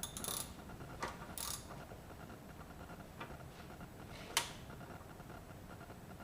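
Ratchet wrench clicking in two short bursts while the starter's wire terminals are undone, with scattered light metal clicks and one sharper click about four seconds in.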